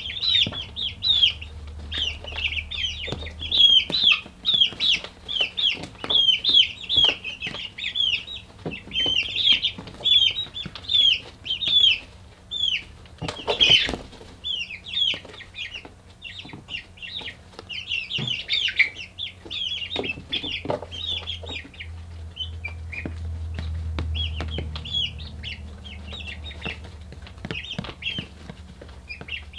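Young chicks peeping steadily in a brooder, a dense run of short, falling chirps, with scattered sharp clicks and a brief burst of noise about halfway through. A low steady hum sits underneath.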